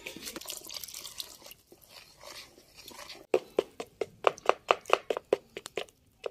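Hand mixing a runny flour, egg and milk batter in a plastic bowl with soft wet squelches, then a spoon beating the batter in quick strokes that click against the side of the bowl about five times a second.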